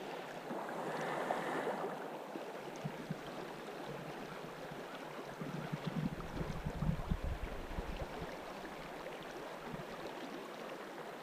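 Fast-moving river current rushing steadily, with a stretch of low rumbling on the microphone a little past the middle.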